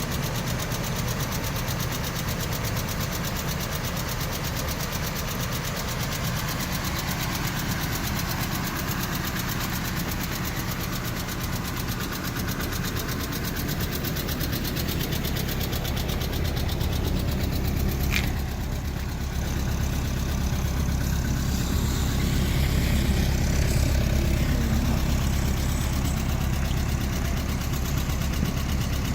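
Mazda Miata four-cylinder engine idling steadily with a rapid lifter tick: noisy hydraulic lifters, recorded before an oil change.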